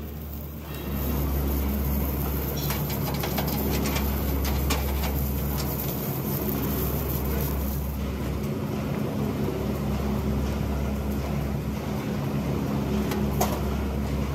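Submerged arc welding rig running on a steel LPG cylinder seam under a bed of granular flux: a steady low electrical hum that comes up about a second in, with scattered crackling ticks.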